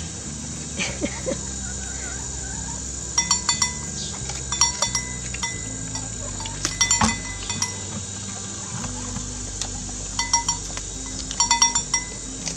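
A small metal bell on a goat's collar clinking in short clusters of a few strikes, about five times, as the goat feeds on a cucumber held out to it.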